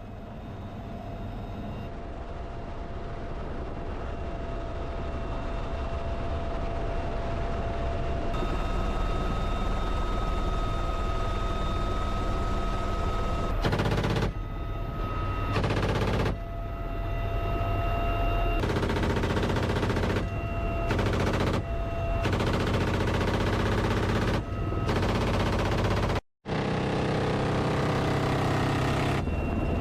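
UH-1Y Venom helicopter's turbines and rotor running with a steady whine, and from about halfway through, a series of bursts of GAU-17/A 7.62 mm minigun fire, each a continuous buzzing stream lasting from under a second to a few seconds.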